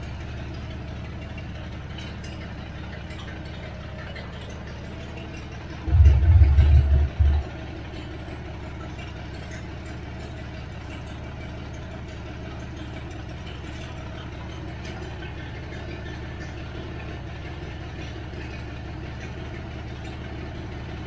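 Freshly rebuilt engine of a 1979 Chevrolet Caravan idling steadily on its first start. A loud low rumble lasts about a second and a half, some six seconds in.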